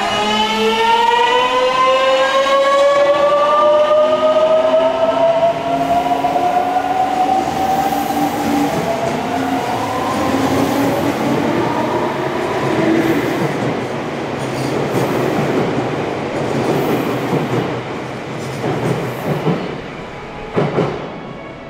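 Meitetsu 200 series train's Mitsubishi late-type GTO-VVVF traction inverter whining as the train pulls away, several tones rising together in pitch over the first ten seconds. Then the wheels roll past on the rail and fade, with two short knocks near the end.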